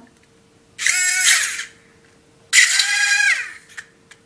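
Small electric rotor motor of a toy RC helicopter whining in two bursts about a second long, each quickly rising in pitch as it spins up, holding, then falling away as the throttle is cut.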